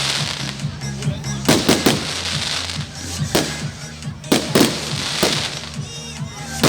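Fireworks going off in a display: about six sharp bangs, two pairs in quick succession, each followed by a crackling hiss. A steady low drone runs underneath.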